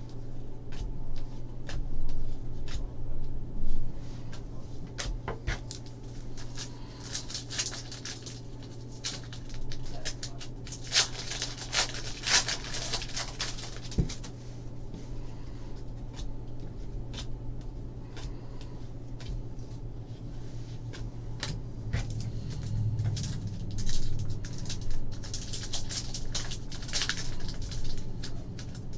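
Trading cards being handled and flicked through by hand, with the foil wrapper of a 2014 Panini Contenders pack crinkling and tearing in several hissy bursts, and scattered light clicks and taps of cards on the table.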